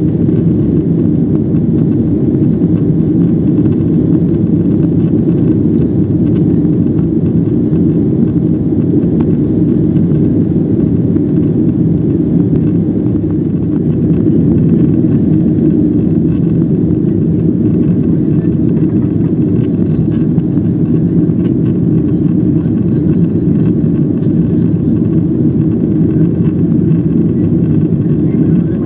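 Cabin noise inside a Boeing 767-400ER in the climb after take-off: a steady, loud, low drone from its turbofan engines and the airflow, unchanging throughout.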